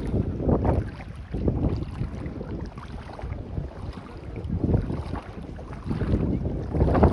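Sea waves washing on a beach, with wind buffeting the microphone in gusts that make a low rumble.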